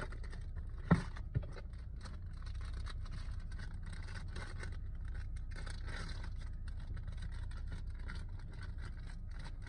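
A blind-box figure's wrapping crinkling and tearing as it is opened by hand, with two sharp knocks about a second in.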